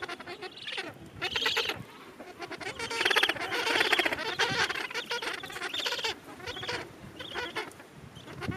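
Gentoo penguins calling in their colony: a series of harsh, rapidly pulsed calls in several bouts, the longest and loudest about three to four and a half seconds in.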